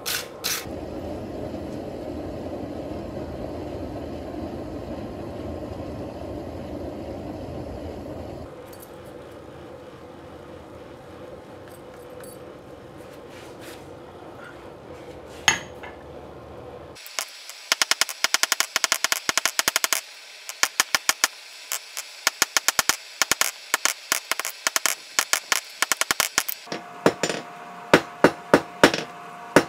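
A hand hammer striking hot 5/8" mild steel bar stock on an anvil in a rapid run of blows through the second half, the anvil ringing with a steady tone near the end. Before that, a steady rushing noise that cuts off suddenly.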